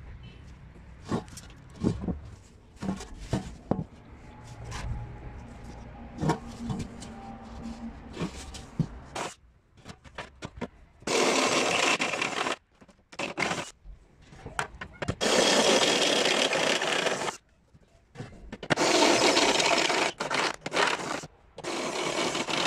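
Cordless drill boring holes through a thin metal disc on a wooden table: four loud runs of drilling of one to three seconds each, starting about halfway through. Before that, a string of light knocks and taps as the disc is handled.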